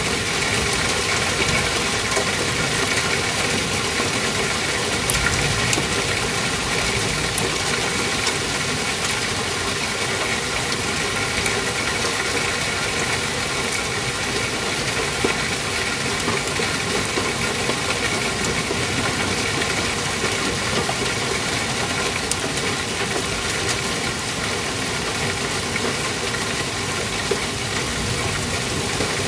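Hail and rain coming down hard: a dense, steady patter of many small ice ticks, with a faint steady hum under it.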